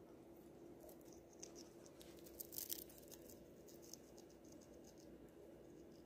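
Faint crackling crunches of an African grey parrot nibbling a caramel-coated puffed corn snack with its beak, loudest a little after two seconds in, over a low steady hum.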